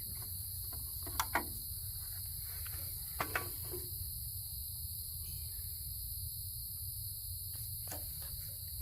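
Steady high trilling of crickets and other night insects. It is broken by a few sharp clicks: a pair about a second in, another pair about three seconds in, and one near the end.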